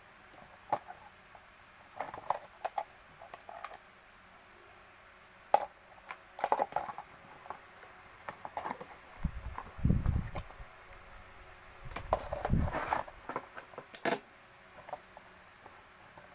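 Scattered clicks and light knocks of small parts and tools being handled while working on an electric fan, with two brief low rumbling scrapes about ten and twelve seconds in.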